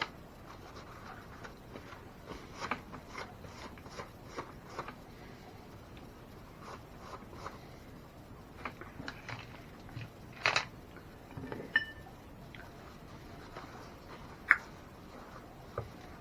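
Light clicks and scrapes of small parts being handled, with a few sharper knocks about ten and fourteen seconds in and a brief metallic ping just before twelve seconds.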